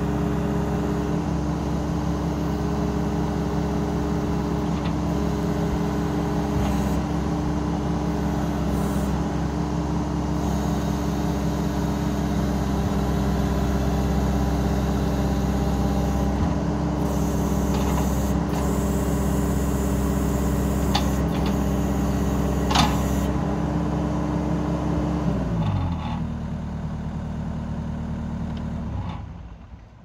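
Case TR310 compact track loader's 74 hp four-cylinder turbo diesel running steadily at high throttle as the machine drives on its tracks, with one sharp clack a little after twenty seconds. About 25 seconds in, the engine winds down to a lower idle, and the sound drops away near the end.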